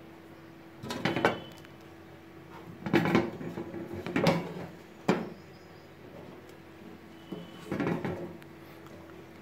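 Sheet-metal MCB distribution box being handled: bursts of metallic clanking and rattling about a second in, around three to four seconds in, and near eight seconds, with one sharp knock at about five seconds, over a faint steady hum.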